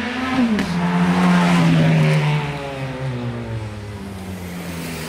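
A car engine accelerating past, its note climbing, then dropping suddenly about half a second in. It is loudest a second or two in, then the pitch sinks slowly and fades as the car moves away.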